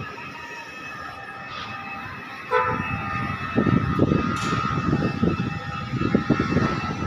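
Mobile crane running under load with a steady whine while it hoists a steel I-beam. The level jumps about two and a half seconds in, and after that uneven low gusts of wind buffet the microphone.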